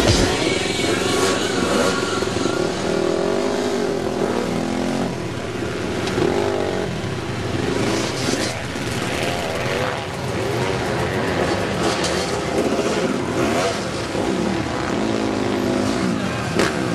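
Several off-road motorcycles running together, their engines revving up and down at different pitches over one another.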